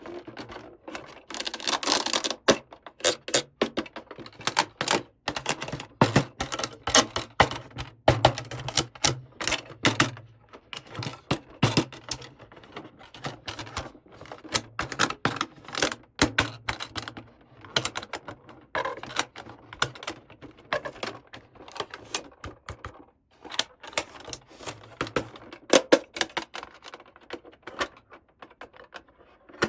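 Small hard plastic toy pieces being handled, a dense, irregular run of sharp clicks and taps.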